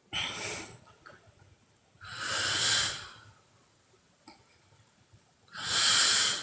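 Woman snoring in her sleep: three noisy, hissing breaths about two seconds apart, the last the loudest.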